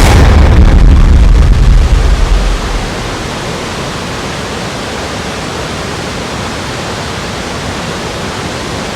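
Steady rushing of a waterfall. For the first few seconds it is buried under a much louder deep rumble, which drops away almost three seconds in.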